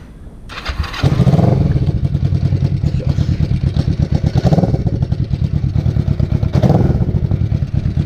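Kawasaki Vulcan 500's parallel-twin engine, breathing through freshly fitted fishtail exhaust tips with homemade silencers, starting up about half a second in, then idling with a pulsing exhaust beat. The revs swell briefly about three times.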